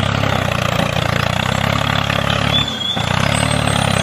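Tractor diesel engine sound running steadily with an even low throb, dipping briefly near three seconds in.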